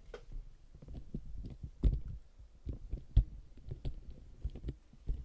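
Handling noise: a run of irregular clicks and knocks with low thumps, the two loudest about two and three seconds in.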